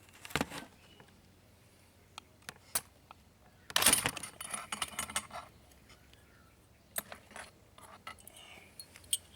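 Loose metal fittings of a K98k Mauser rifle clinking and rattling as the rifle is handled. The sound is mostly single sharp clicks, with a louder jangling clatter about four seconds in.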